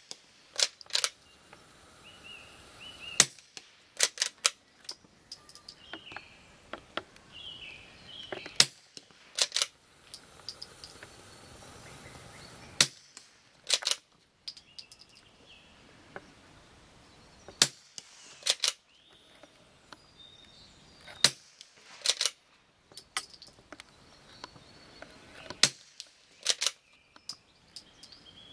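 ISSC SPA .22 LR firing single shots at irregular intervals, about twenty sharp cracks in all, sometimes two in quick succession.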